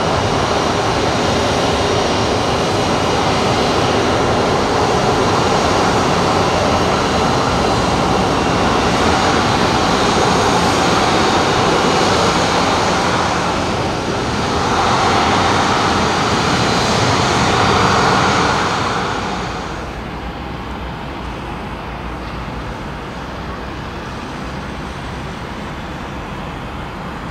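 CFM56 turbofan engines of a taxiing Boeing 737-500, a loud steady rush that grows louder for a few seconds around fourteen seconds in. About twenty seconds in it drops suddenly to a quieter, steady airport noise.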